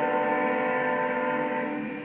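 Locomotive air horn sounding one long chord of several tones, cutting off near the end, leaving the low rumble of the passing train.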